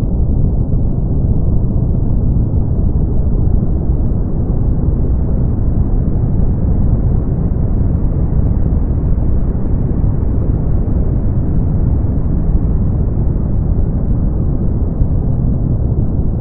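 Steady brown noise: an even, deep rush heavy in the bass with very little treble. It brightens slightly toward the middle and eases back again.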